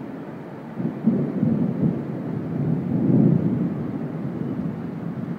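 Thunder rumbling over steady rain: the rumble swells about a second in, is loudest near the middle, then slowly fades.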